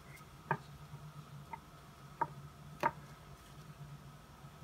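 Kitchen knife slicing through zucchini, the blade knocking on the cutting board four times at uneven intervals, each a short sharp tap.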